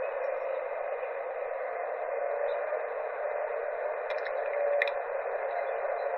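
A replayed recording of the so-called strange sky sound, heard through small speakers: a steady, hissy drone with a faint hum swelling in and out.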